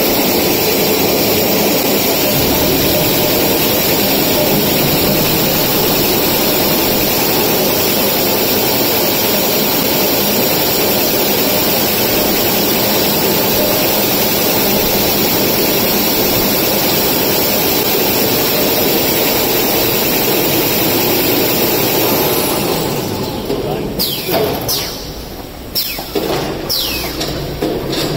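Industrial maxi-roll (jumbo tissue roll) rewinding machine running at speed, a loud steady mechanical rush of rollers and motors. Near the end the noise drops and turns uneven, with several short falling sweeps.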